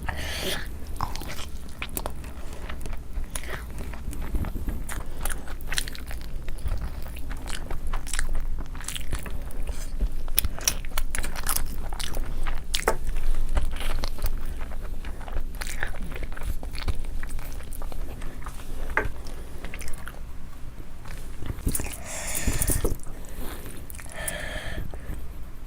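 Close-miked mukbang eating: a person chewing and biting into mouthfuls of spicy mutton curry and biryani, with many short mouth clicks and crunches throughout. Near the end comes a longer, louder stretch of eating noise.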